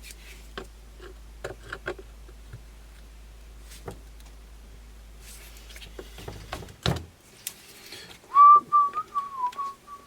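A man whistling a short, wavering tune near the end, the loudest sound here. Before it come scattered light clicks and taps from handling tools and small rifle parts at the bench, and a thump about seven seconds in.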